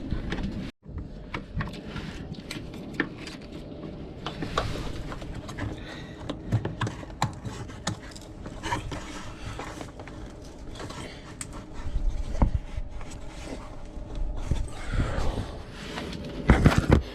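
Hands working at a wiring plug and its mounting clip: irregular plastic clicks and scrapes, with a few louder knocks near the end.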